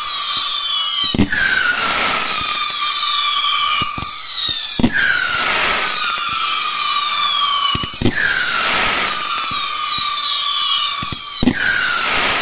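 Fireworks fired at close range: a sharp launch thump about every three and a half seconds, each followed by a chorus of whistles that slide down in pitch for about three seconds.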